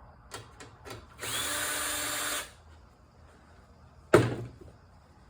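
Power drill running steadily for about a second, after a couple of light clicks. A single sharp knock, the loudest sound, comes about two seconds later.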